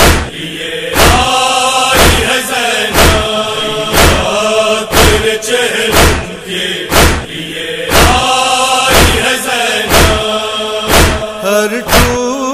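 Male chorus chanting a sustained nauha refrain between verses, kept in time by sharp matam (chest-beating) strikes about once a second.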